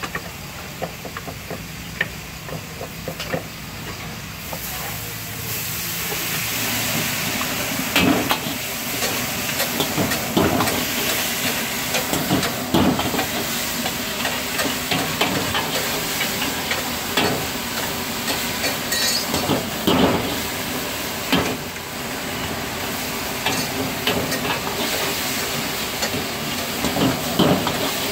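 Food sizzling and hissing as it is stir-fried in a wok over a high flame, with a long steel ladle scraping and knocking against the wok every second or two. The sizzle swells loud about five seconds in and stays up.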